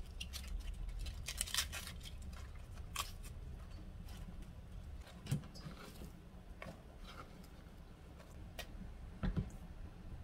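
Food being handled in a stainless steel mixing bowl: sliced onion pieces dropped in among spring cabbage leaves, with light crisp rustles and clicks. There are two louder knocks, about five and nine seconds in.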